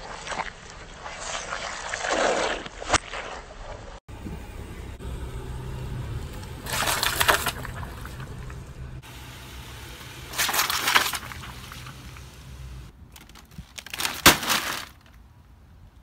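A car tyre rolling over and crushing water-filled squishy splash toys: crackling, crunching bursts every few seconds. A low steady hum runs under the middle stretch.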